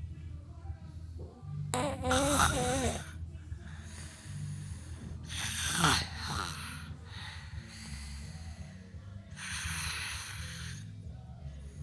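Snoring: a low, rattling drone throughout, with three louder, rasping snores about two, six and ten seconds in. The first has a wavering, whistly pitch.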